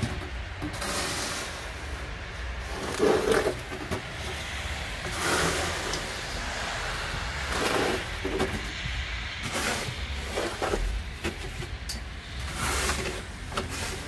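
Snow shovel blade scraping and pushing snow along a snowy driveway, about six pushes every two to three seconds, over a steady low rumble.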